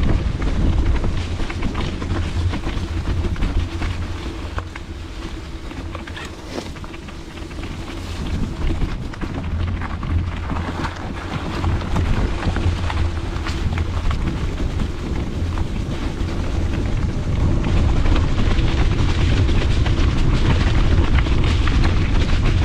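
Mountain bike ridden over a wet trail, heard from a handlebar-mounted camera: a steady low rumble of wind on the microphone and tyres on the ground, with scattered clicks and rattles from the bike. It eases off for a few seconds about a quarter of the way in, then builds again.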